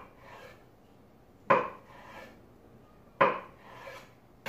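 Kitchen knife slicing a boiled carrot on a wooden cutting board, the blade knocking on the board twice, about a second and a half in and again a little past three seconds.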